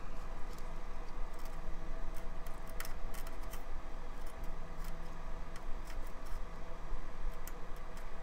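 Soldering iron pressing desoldering braid onto circuit-board pads to wick up old solder: scattered faint crackles and ticks as the braid heats and drags, over a steady low hum.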